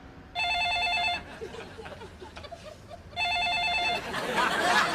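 Telephone ringing with an electronic warbling ring: two rings of a little under a second each, about two seconds apart.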